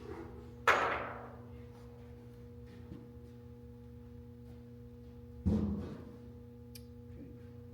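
Two sharp knocks from the stand's parts being handled, one about a second in and another about five and a half seconds in, each ringing briefly as it dies away, over steady background music.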